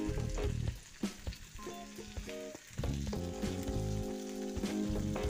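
Chalta (elephant apple) pieces sizzling in oil in a kadai, with light crackles, over background music with held notes.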